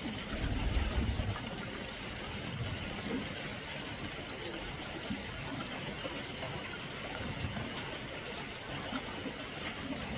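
Steady hiss of water, with a brief low rumble about a second in.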